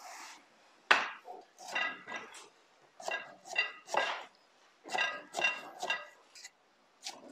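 Chinese cleaver slicing pork belly into shreds on a thick wooden chopping block. About a dozen unhurried cutting strokes, each a short knock of the blade on the wood, some with a faint metallic ring.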